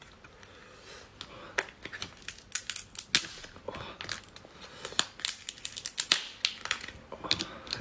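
Cooked lobster tail being broken open by hand: the shell cracking and the meat tearing away from it in a quick run of sharp crackles and snaps, starting about a second and a half in.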